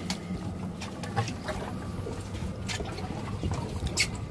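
Water splashing and sloshing against the boat's hull as a gaffed tuna is pulled alongside and lifted aboard, with scattered knocks and a sharp loud knock near the end, over a low steady hum.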